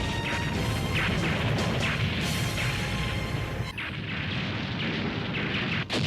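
Cartoon explosion sound effects: a dense string of blasts and crashes, one on top of the other. The sound changes abruptly about two-thirds in and breaks off briefly near the end.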